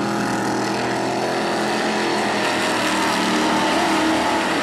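Engines of dirt-track race cars running hard together on the track, several overlapping engine notes with small rises and falls in pitch. They grow a little louder near the end as a car passes close.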